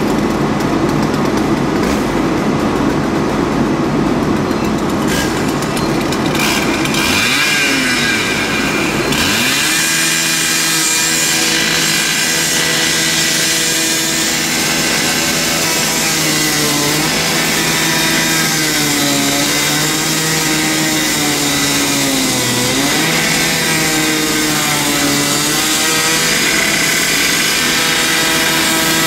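Gas-powered rotary saw cutting into the metal at the front of a burned-out truck. For the first several seconds there is a rough rushing noise. From about nine seconds in, the saw's engine runs at high speed, its pitch sagging again and again as the blade bites into the metal.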